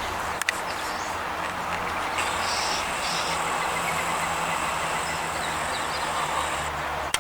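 Steady outdoor background noise: a low hum under an even hiss, with a few faint short chirps.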